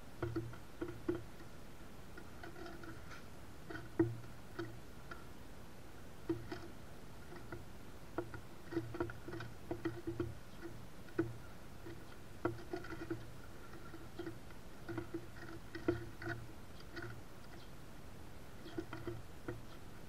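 Small birds pecking at sunflower seeds and hopping on a wooden platform feeder: irregular taps and knocks on the boards, often in quick clusters, each with a short hollow ring in the wood.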